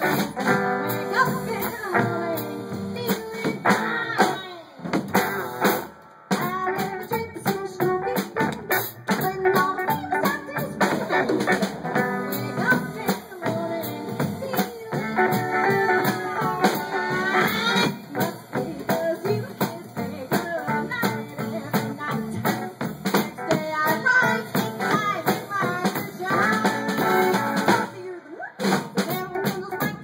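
Live swing-style band music: a woman singing over an upright bass and a small band, with a brief break about six seconds in.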